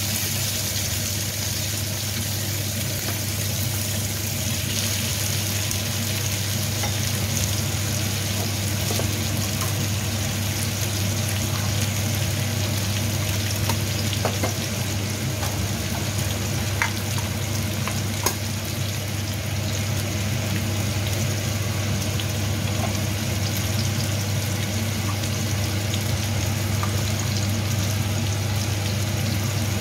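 Tomato wedges sizzling steadily in oil in a nonstick frying pan, over a steady low hum, with a few light clicks in the middle.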